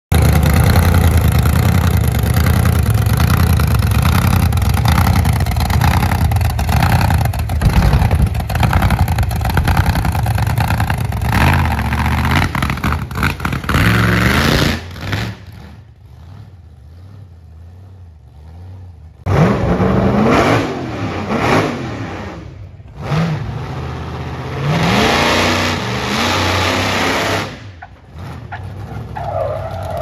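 The JCB GT dragster backhoe's 1,500-horsepower engine running hard as the machine is driven. It drops to a much quieter idle about halfway through, then is revved in several short bursts that rise in pitch.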